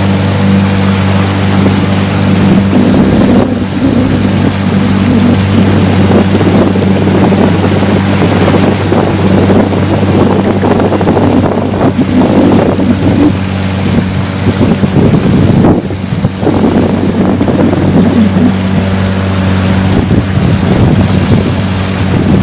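Small boat's motor running steadily, a constant low hum, with irregular gusts of wind noise on the microphone.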